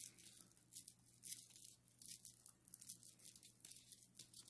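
Hands squishing and pressing a ball of lard packed with bird seed, nuts and dried fruit: faint, irregular sticky crackles.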